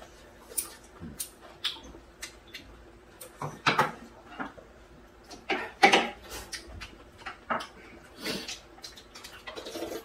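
Kitchen scissors snipping through food in a quick series of sharp, crisp snips, with two louder slurps of cold bean-soup noodles around the middle.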